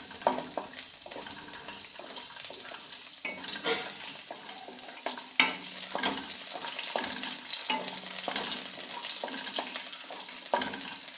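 Cashew halves sizzling in hot ghee in a nonstick kadhai, with a steady hiss. A wooden spatula stirs them, tapping and scraping against the pan in frequent short knocks, a few of them sharper.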